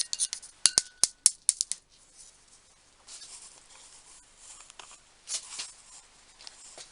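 Metal parts of an old hand-operated bench drill clicking and clinking as they are worked by hand, a rapid run of sharp clicks with a brief metallic ring in the first two seconds, then softer rubbing and handling noise.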